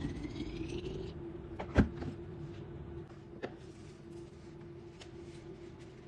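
Water being poured into a mate gourd, its pitch rising as the gourd fills, stopping about a second in. A sharp click follows shortly after, and a fainter one a little later.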